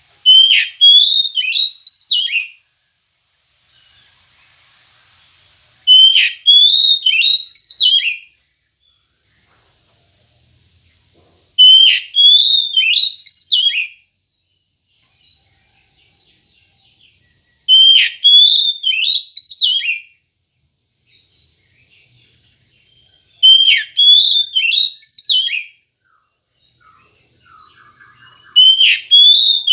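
Oriental magpie-robin (kacer) singing: a phrase of loud, clear whistled notes sliding up and down, about two seconds long, repeated roughly every six seconds. Faint chirps fill the gaps between phrases.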